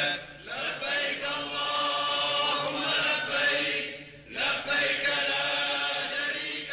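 Vocal chanting, a melodic line held and drawn out with short breaks about half a second in and about four seconds in.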